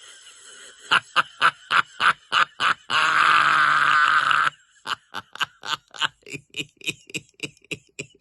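Laughter in quick, even bursts of about three a second, with one long held cry of laughter about three seconds in.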